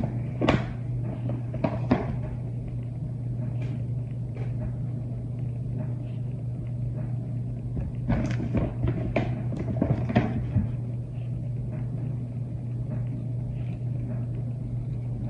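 Baby clothes and their packaging being handled and unpacked: rustling with short clicks and knocks, in a cluster near the start and another from about eight to ten seconds in, over a steady low hum.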